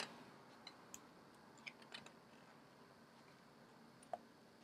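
Near silence with a few faint, scattered clicks and light paper sounds as the pages of a large hardcover book are turned and handled, the clearest at the start and one about four seconds in.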